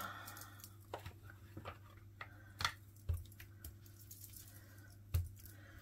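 Light taps and clicks of paper and small craft tools being handled on a desk, about six of them scattered through a few seconds, after a soft rustle at the start, over a steady low hum.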